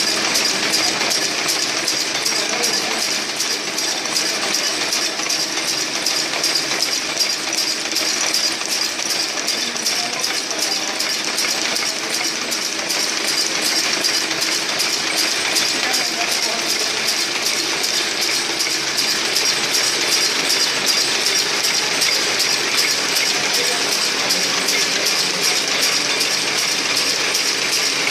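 AGS-100 air gun slug making machine running at production speed: a rapid, even metallic clatter of its rams and slides, repeating several times a second without a break.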